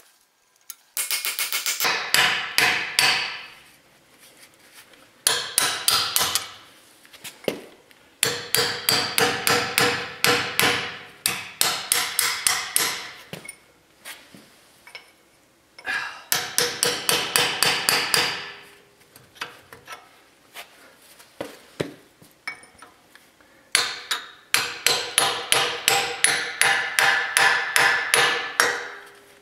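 Hammer rapidly striking a steel punch against a rusted Dana 44 front axle steering knuckle, with ringing metal clanks in five runs of quick blows separated by short pauses. The blows are driving at a stuck part of the knuckle.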